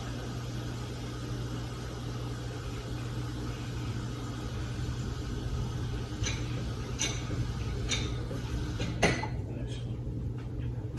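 Steady low hum of a running kitchen appliance, with a few light clicks and knocks of pots or utensils being handled in the second half.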